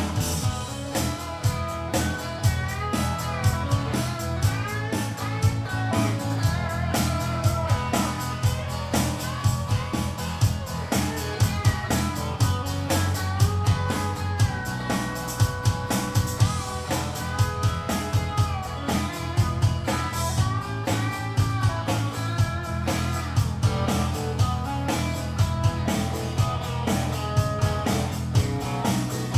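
Live rock band playing an instrumental break with no vocals: bending lead-guitar lines over a steady bass and a drum beat.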